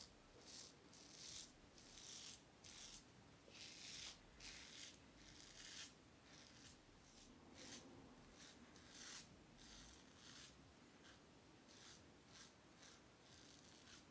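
Aylsworth APEX stainless steel double-edge safety razor scraping through lathered stubble against the grain: a run of short, faint scraping strokes, sparser and fainter in the second half.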